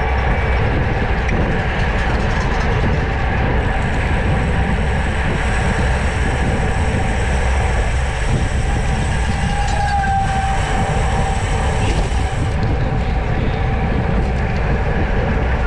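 Steady wind rush and low road rumble buffeting a bike-mounted GoPro's microphone while riding at race speed, with faint thin whining tones over it.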